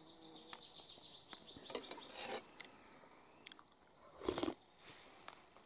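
A man eating canned soup with a spoon: light clicks and scrapes of the spoon in the tin, then one short loud mouthful from the spoon just after four seconds. A bird trills in quick repeated notes during the first couple of seconds.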